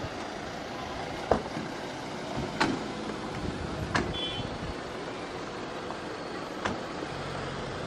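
SUV engines running as the vehicles roll slowly over the field, with four sharp knocks spread through the clip.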